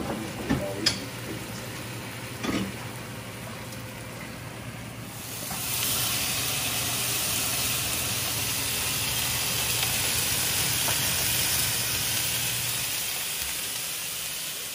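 Chicken breasts frying with diced onion and bell pepper in a non-stick pan, sizzling. A few light knocks come in the first few seconds, then the sizzle swells about five seconds in and eases off near the end.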